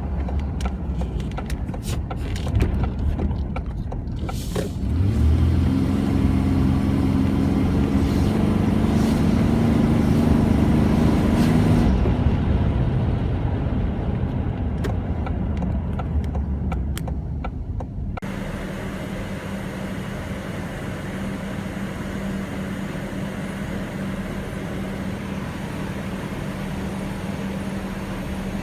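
Ford Explorer Sport Trac engine running. About five seconds in it is revved up and holds a loud drone that slowly falls away. At about eighteen seconds the sound changes abruptly to a steady, quieter hum.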